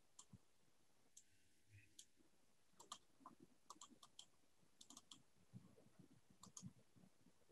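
Near silence with a scattered series of faint computer mouse clicks.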